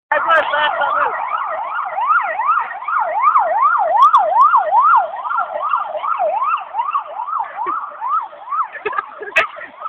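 Electronic siren wailing in fast rising-and-falling sweeps, about two a second, fading away over the last few seconds. A sharp knock near the end.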